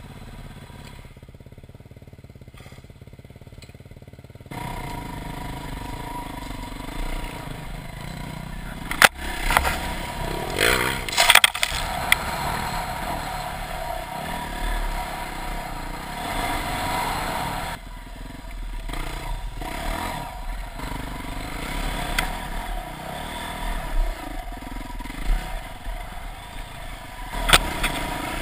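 Dirt-bike engine running as the motorcycle rides a rough bush track, getting louder about four seconds in. Several sharp knocks and rattles come through, the loudest about a third of the way in and again near the end.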